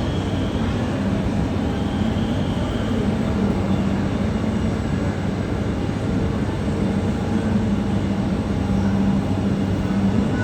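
Jet airliner engines running, a steady loud drone with a constant low hum and a faint high whine.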